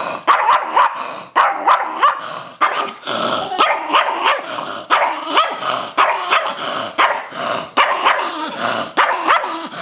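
Chihuahua barking and growling in a rapid run of short, sharp barks, one after another without a break: an agitated, aggressive reaction to being asked about getting in the shower.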